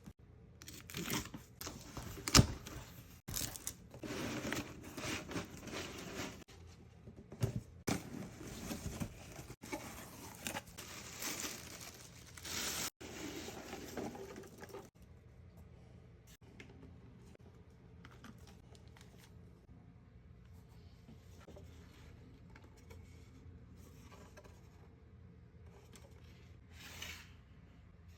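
Package wrapping being torn open and crumpled: a run of rips and crinkling rustles, with one sharp snap about two and a half seconds in, that stops about halfway through and gives way to faint handling sounds.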